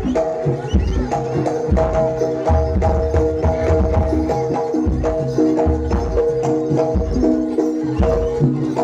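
Jaranan Malangan ensemble music: repeated drum beats under a melody of steady pitched tones that change note every second or so.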